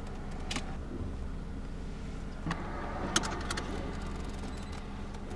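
Car engine idling, heard from inside the cabin as a steady low hum, with a few faint clicks.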